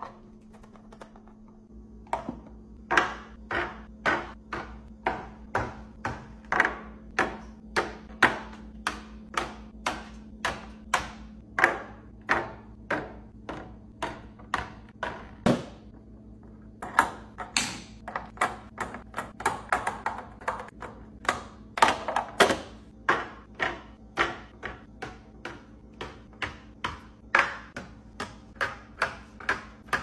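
Light taps and clicks of food and small items being set one by one into clear plastic storage containers on a stone countertop, about one or two a second, with a duller thump and a short pause about halfway through.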